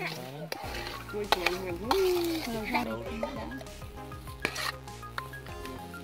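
Clinks and scrapes of a spoon and an opened drink can being handled over raw beef in a metal bowl. Background music comes in about half a second in.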